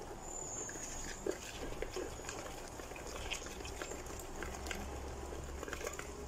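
Wire whisk stirring flour and water into a thick batter in a plastic bowl, with irregular squelching and small clicks of the wires against the bowl.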